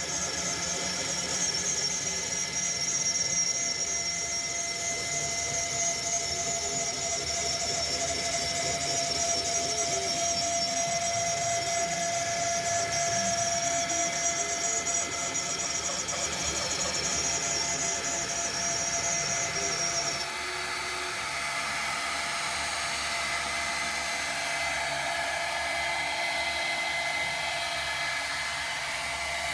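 CNC router spindle running with a 1/8" bit milling a screw thread around a rod turned by the machine's C axis: a steady high-pitched whine over cutting noise. About two-thirds of the way through the high whine cuts off and a steadier, slightly quieter running noise continues.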